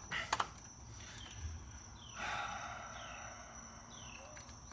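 Faint hand-tool work on a motorcycle engine: a few sharp metal clicks at the start, then a short scraping rustle about two seconds in. A thin steady high tone and short falling chirps sound in the background.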